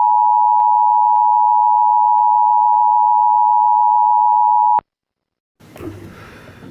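Emergency Alert System attention signal: the loud, steady two-tone alarm (853 and 960 Hz together), with faint regular clicks, cutting off suddenly about five seconds in. After a short silence a faint hiss comes in near the end.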